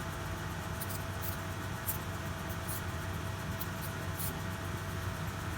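Grazioli Fortuna metal lathe running with a steady hum, with a few faint, light clicks scattered through it.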